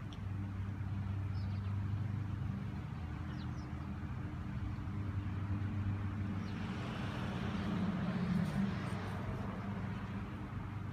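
A steady low engine hum, with a road vehicle passing on the street whose noise swells and peaks about eight seconds in, then fades.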